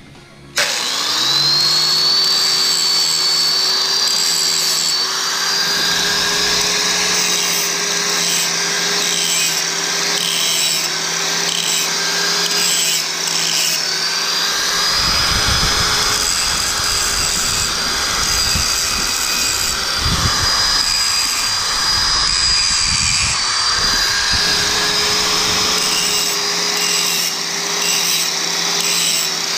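Electric angle grinder switched on about half a second in, spinning up to a steady high whine, then grinding down the lower edge of a frame tab on a Sur-Ron X so that the fork's lower crown clears it. The sound turns rougher, with a low rumble, from about halfway.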